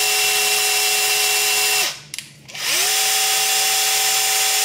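Cordless drill driving the Snapdrill pipe hole-cutter, its hole saw spinning free with no pipe in the clamp, as the tool's automatic feed is shown. It runs with a steady whine, stops just before two seconds in, then spins up again with a rising whine about half a second later and runs steadily.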